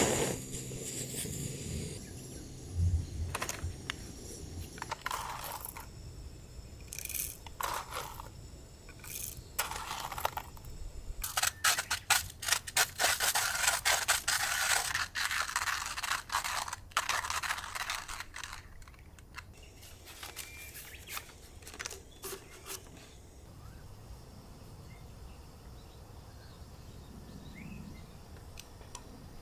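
Objects being handled by hand: scattered clicks and knocks, with a stretch of dense rustling and clatter in the middle, then a quiet outdoor background.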